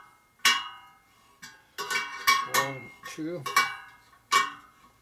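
Spoke wrench clinking on the steel spokes and nipples of a laced chrome motorcycle wheel as the spokes are tightened. There are several sharp metallic clinks at uneven intervals, each ringing briefly.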